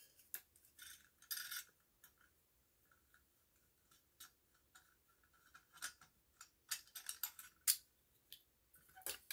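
Quiet, scattered clicks and light rattles of a plastic smoke alarm being handled, busier in the second half.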